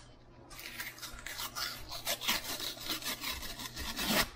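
Drywall being peeled apart by hand: the brown backing paper and gypsum core tear away from the white face paper with a dense, scratchy crackling. The sound starts about half a second in and stops abruptly just before the end.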